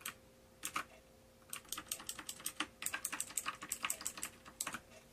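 Keys pressed on a Xenics M9 Spectrum mechanical keyboard: a few separate key clicks, then a quick irregular run of clicks from about a second and a half in until near the end.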